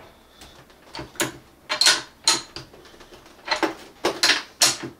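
A flat wrench clicking and clacking against the tilt-joint nut of a steel monitor arm: about six sharp metal knocks with pauses between. The nut is being tightened to stiffen a tilt that was too loose.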